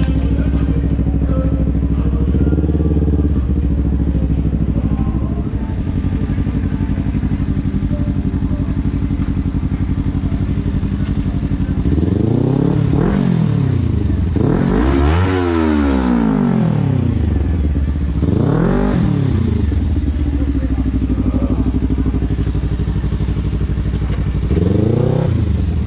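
Kawasaki Ninja 300 parallel-twin engine running under way. In the second half it revs up and falls back several times, the pitch climbing and dropping with each blip of the throttle.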